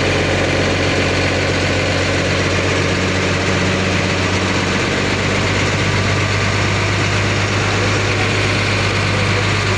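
Tata truck's diesel engine idling steadily, heard from inside the cab.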